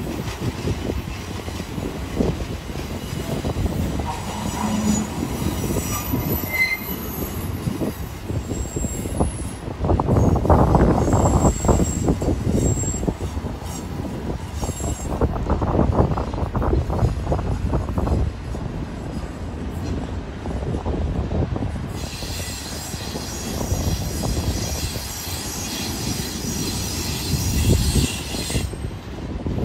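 BNSF freight train's well cars rolling past on a curve: a steady low rumble with clattering wheels, loudest a third of the way in. Thin high-pitched wheel squeal comes and goes over it, strongest near the end: wheel flanges grinding against the rail on the curve.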